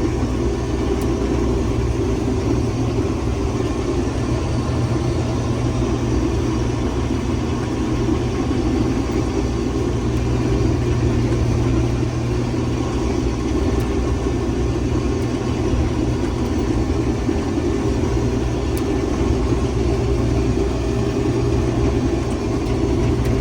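Combine harvester running steadily while harvesting, a constant low drone heard from inside the cab.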